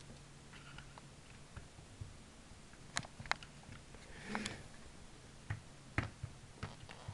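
Kittens batting a ball around a plastic ball-track cat toy: sharp plastic clicks and knocks of paws and ball against the track, about half a dozen from around three seconds in, with a short rattle just past the middle.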